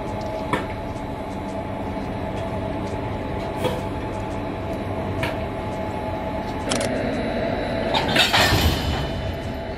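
Indian Railways electric locomotive running slowly during yard shunting: a steady hum with a few held tones and occasional sharp clicks. About eight seconds in comes a louder, harsher burst of metallic noise as the locomotive works at the coupling to a coach.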